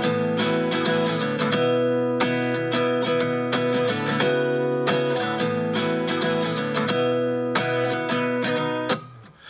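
Acoustic guitar strumming music played back over Harman Kardon SoundStick 4 speakers as a listening demo. It has no vocals and dips briefly in level near the end.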